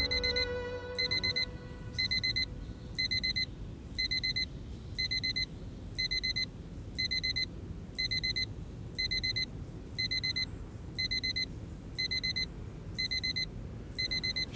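Digital alarm beeping: a quick burst of high, even beeps repeating about once a second.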